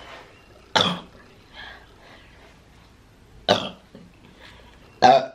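A woman burping three times from drinking cold beer: three short, loud burps, about a second in, in the middle and near the end.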